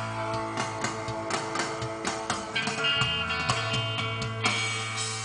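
Guitar music playing through a 2008 Fiat Stilo's factory car stereo, which the owner suspects of a fault that makes the sound cut in and out and change volume.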